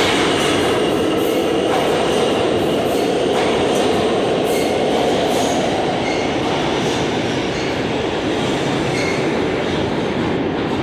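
New York City Subway E train running out of the station: a loud, steady rumble of steel wheels on rail with scattered clicks, easing slightly in the second half as it pulls away.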